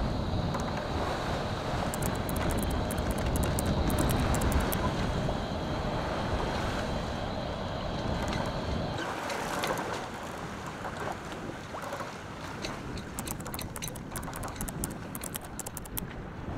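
Wind rushing over the microphone and sea water washing past a sailboat under way, a steady rush with bunches of sharp crackles. About nine seconds in the deep rumble drops away and the rush becomes thinner.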